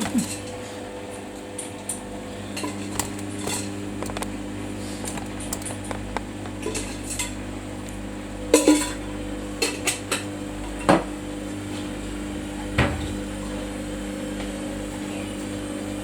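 Samsung washing machine running with a steady hum, with scattered sharp clinks and knocks like metal or crockery. The loudest clinks come about two-thirds of the way through.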